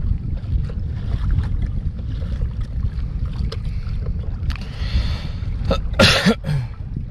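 Wind buffeting the microphone with a steady low rumble, over scattered small clicks and knocks of the landing net and fishing gear against a kayak. A short, loud scuffle and knock comes about six seconds in.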